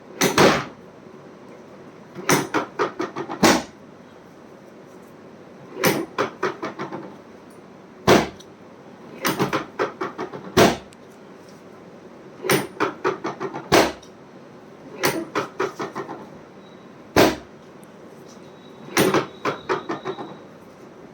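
Sharp clicks or knocks in a repeating pattern: single strikes alternate with quick runs of four to six, a group about every two seconds.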